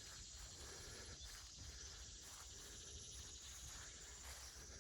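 Near silence: faint outdoor ambience with a steady, high insect drone.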